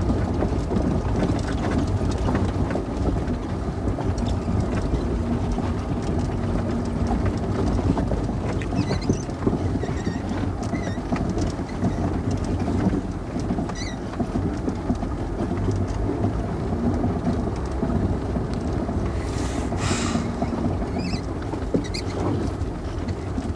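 Car driving over a bumpy dirt track, heard from inside: a steady low rumble of engine and tyres with occasional rattles and knocks.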